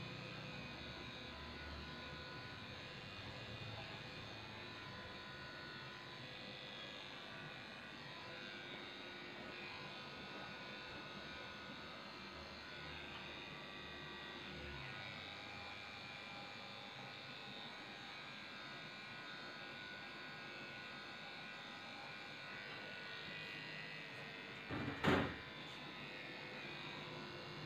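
Electric dog clippers running steadily, shaving down a Shih Tzu's coat. One sharp knock near the end.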